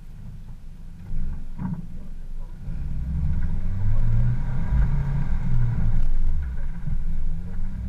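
Suzuki 4x4's engine pulling in reverse gear. It is revved harder about three seconds in and then holds at a higher, louder pitch. A short knock comes near the start.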